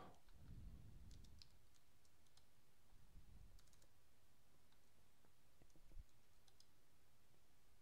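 Faint clicking of computer keyboard keys in a few small clusters, over near-silent room tone.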